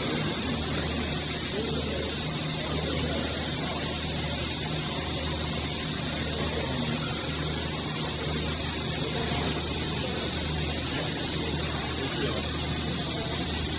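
Steady, even machinery noise: a loud hiss with a low hum underneath, unchanged throughout.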